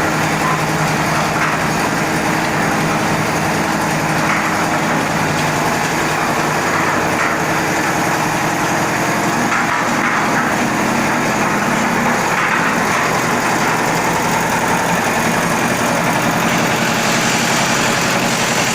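Concrete mixer's engine running steadily at an even speed.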